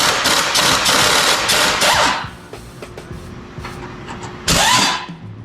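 Power wrench running on a suspension bolt in two bursts: one about two seconds long at the start, then a short one of about half a second near the end.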